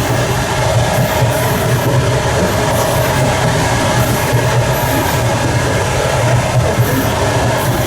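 Passenger train running at speed, heard from the vestibule between carriages: the steady loud rumble and rattle of its wheels on the rails.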